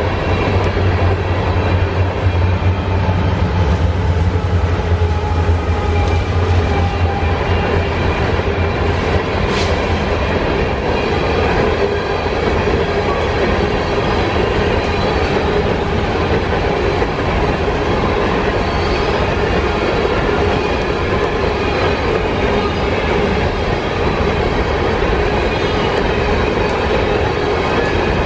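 Empty coal hopper cars of a freight train rolling steadily past: steel wheels running over the rail joints, with the rattle of the empty cars.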